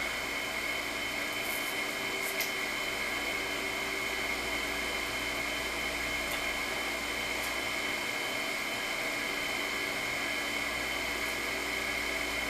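Steady background machine noise: a constant whirr with a high whine running through it, unchanging throughout.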